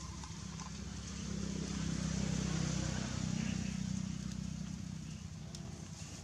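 A motor vehicle's engine running, its low hum swelling over the first couple of seconds and then fading away.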